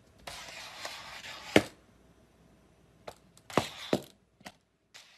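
A few sharp knocks and thuds on a hard surface. A short scraping stretch ends in the loudest knock about a second and a half in, then a close cluster of knocks follows about two seconds later, with two lighter taps near the end.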